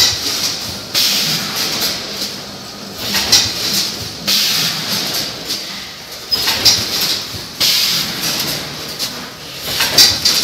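Vertical form-fill-seal pouch packing machine with a multihead weigher running: repeated bursts of hissing every second or two, typical of its pneumatic cylinders venting compressed air as it cycles, over a steady mechanical running noise.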